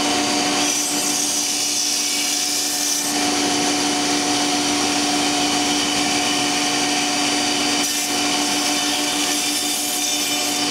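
Two-spindle CNC router's spindles running with a steady whine as they cut slots in a sheet panel, over a steady hiss; the cutting noise eases for a couple of seconds about a second in.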